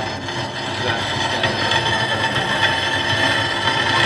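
Metal-cutting bandsaw running steadily as its blade cuts through half-inch by four-inch hot-rolled steel flat bar.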